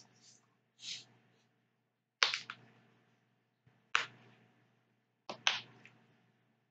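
Handling sounds close to the microphone: about six sharp clicks and knocks, roughly a second apart, as a plastic drink bottle is picked up and handled.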